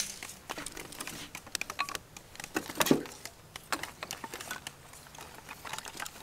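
Split wooden kindling sticks clattering and knocking together as they are stacked over a small fire in a metal drum stove: irregular light clicks, with one louder knock about three seconds in.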